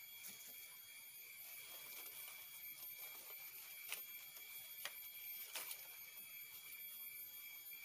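Faint, steady high-pitched insect chorus, with three sharp knocks a little under a second apart in the middle.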